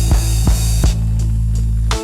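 Blues-rock band music: drum hits over a low bass for about a second, then the beat stops and a held low chord rings out and ends the track.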